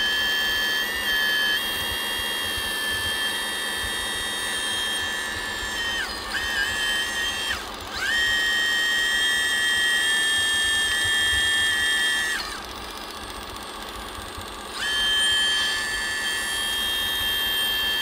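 High-pitched whine of an RC construction model's electric motor, holding one steady pitch. It falls away and picks up again twice around six to eight seconds in. It drops out for about two seconds near twelve seconds and comes back with a quick rise in pitch.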